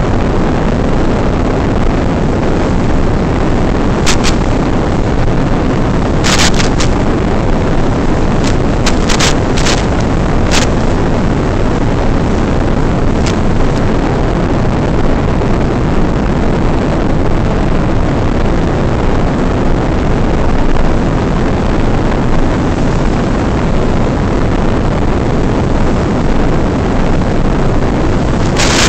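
Steady, loud rush of airflow buffeting the small onboard FPV camera microphone of an RC plane in flight, with a few short crackles of radio static.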